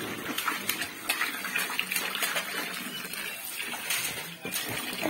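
A thin stream of water pouring into a shallow inflatable paddling pool, splashing on the water and plastic balls, with irregular splashes as children move about in the water.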